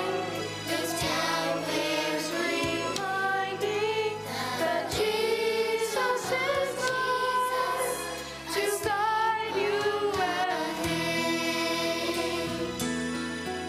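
Youth choir singing a Christmas song with instrumental accompaniment.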